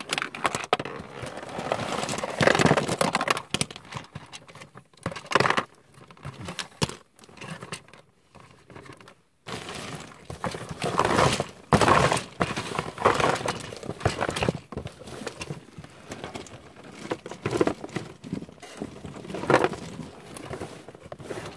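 A cardboard toy box being pulled out of a heap of gold coins and handled, the coins clinking and sliding and the box rustling and scraping in irregular bursts, with a short lull about eight seconds in.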